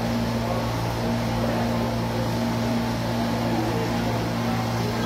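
A steady low mechanical hum holding one constant pitch, with no change in level.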